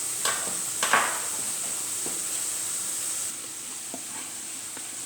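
Flattened green plantain pieces sizzling in hot oil for their second fry, a steady high hiss. A couple of sharp knocks come in the first second, and the sizzle eases a little past halfway.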